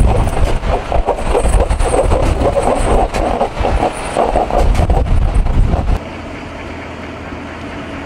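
Heavy truck driving on snow with tyre chains clanking, a loud rumble with rapid clatter. About six seconds in it drops abruptly to a quieter, steady vehicle hum.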